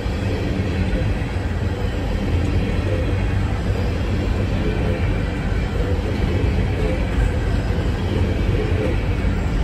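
Loaded coal train's cars rolling steadily past on the track: a continuous rumble of steel wheels on rail, heaviest in the low end.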